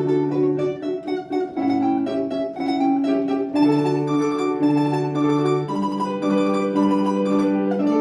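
Live instrumental music: a mandolin-like plucked string instrument plays a classical melody of held notes over a lower line of long, steady bass notes.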